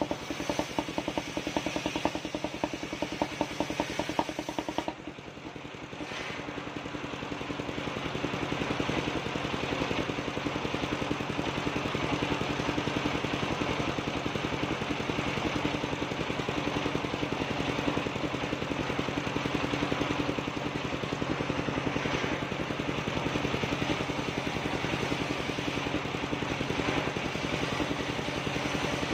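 Engine-driven portable circular sawmill running while planks are ripped on its large circular blade. A fast, even knocking rhythm in the first few seconds dips about five seconds in, then gives way to a steady, denser mix of engine and saw noise.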